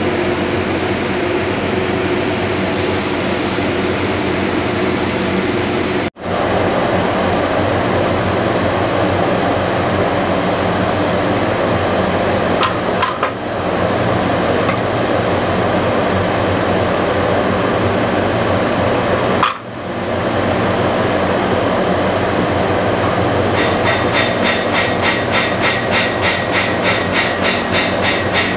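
Loud steady mechanical noise that drops out briefly three times. About 23 seconds in, a fast regular tapping joins it, about four a second.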